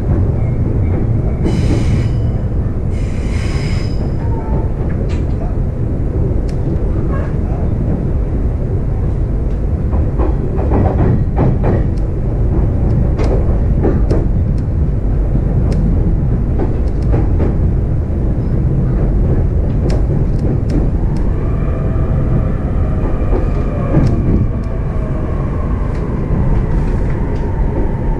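Interior running noise of an E531 series electric train's motor car: a steady rumble of wheels on rail with scattered clicks from rail joints. About three-quarters of the way through, the traction motor whine comes in as several tones that fall slowly in pitch, the sign of the train slowing under braking.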